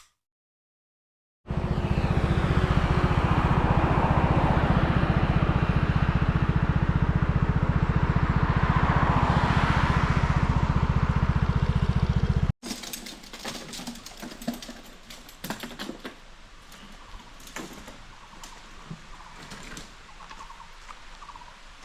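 Scooter engine running at a steady pace, with a dense even low pulsing under a rushing noise that swells and fades. It cuts off suddenly about halfway through, giving way to a much quieter background with scattered light taps.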